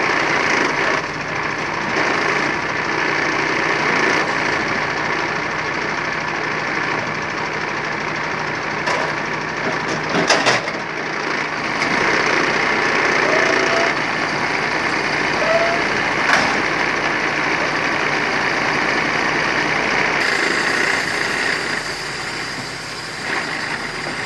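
MAN TGA 480 timber truck's straight-six diesel running steadily under load, powering the hydraulics of its Kesla loader crane as it lifts a log onto the trailer. A few sharp knocks come about ten and sixteen seconds in, and the sound grows brighter and hissier near the end.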